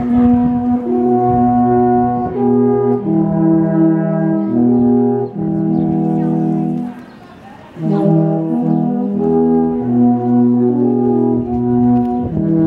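Three alphorns playing together in harmony: long held notes that change every second or so, with a short break about seven seconds in before the next phrase.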